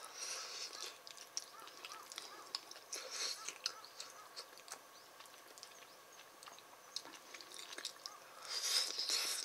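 A person eating mapo tofu: chewing and mouth noises with scattered small clicks, and short hissy bursts just after the start, about three seconds in and loudest near the end.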